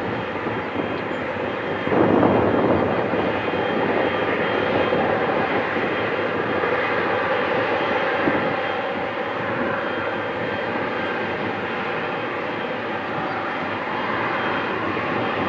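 Jet engines of a Boeing 777 taxiing toward the listener: a steady rushing drone with a faint high whine, swelling louder about two seconds in and then holding.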